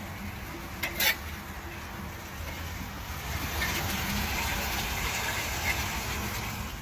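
Floodwater rushing steadily into a street storm drain, swelling a little midway, with a couple of short knocks about a second in.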